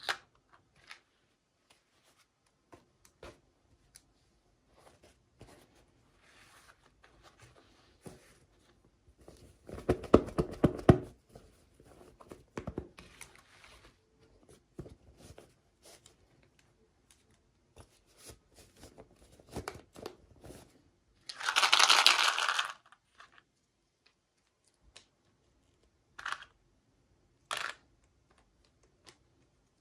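Toy packaging being opened by hand: scattered small clicks and taps of plastic and cardboard, with tearing and crinkling. There are two louder rustling bursts, the second a sharp, hissy rip.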